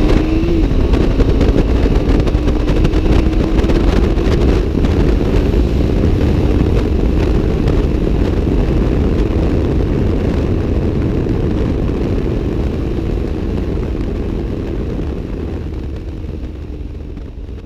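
Motorcycle engine pulling hard as the bike accelerates at highway speed, its note climbing slowly, under a heavy low rumble of wind on the microphone. The sound gradually fades toward the end.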